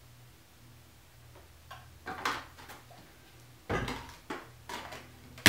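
Short clicks and knocks of a plastic gallon jug of white vinegar and a measuring spoon being handled and the jug's cap being worked, over a low steady hum. The knocks start about a second and a half in and grow denser, with a sharp click at the very end the loudest.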